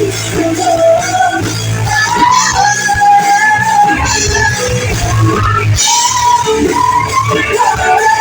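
Live rock band playing a slow song, with a sustained melodic line over a steady low end; the low end drops out about six seconds in.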